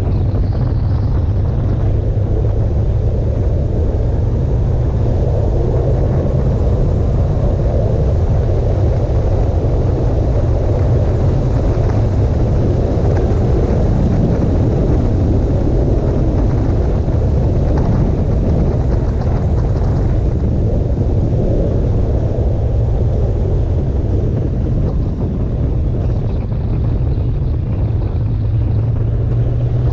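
Motorcycle running steadily at road speed through curves, its engine mixed with wind rushing over the microphone.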